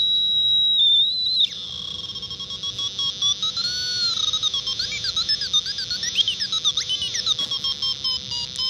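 Piezo buzzer driven by a 4093 Schmitt-trigger NAND oscillator circuit. It first gives a loud steady high beep. About a second and a half in, this changes to a rapidly pulsing, warbling electronic tone whose pitch glides up and down as a trimmer potentiometer is turned.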